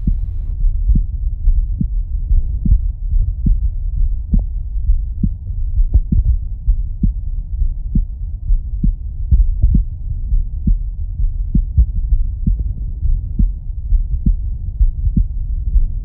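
Human heartbeat heard through a Stemoscope Pro digital stethoscope with its amplification turned up: a regular run of dull lub-dub thuds over a steady low rumble. The amplification adds some background rustling.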